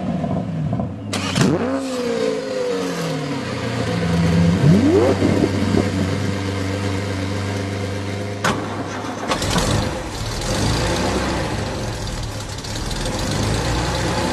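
Car engine running, revved up briefly twice in the first five seconds, with a sharp knock about eight and a half seconds in, after which a deeper rumble comes in.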